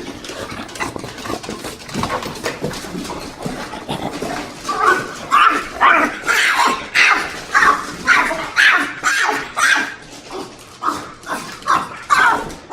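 French Bulldog vocalizing in excitement: after a few seconds of quieter snuffling and rustling, a rapid run of loud, high whining yelps, about two a second. It is the dog's happy greeting of her owner coming home.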